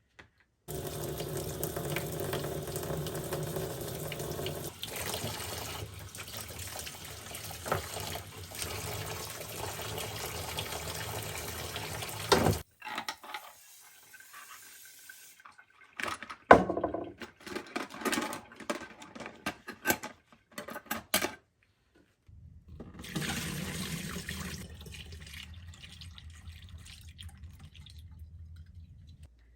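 Water running, as from a tap into a sink, in two long stretches that start and stop abruptly. Between them comes a run of sharp knocks and clatters.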